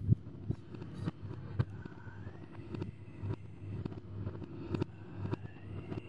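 Creepy Halloween sound-effect ambience: a low rumble scattered with crackles and clicks, and a thin eerie high tone that rises twice and holds.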